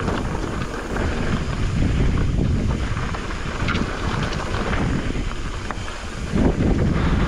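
Wind buffeting an action camera's microphone as a Pivot Firebird mountain bike rolls along a rocky, gravelly singletrack. A steady low rumble carries scattered small crunches and clatters from the tyres and bike.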